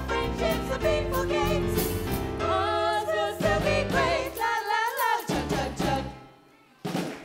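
Pantomime song number: voices singing together over an accompaniment, ending on a held, wavering note about five seconds in. After about a second of near silence, the music starts up again.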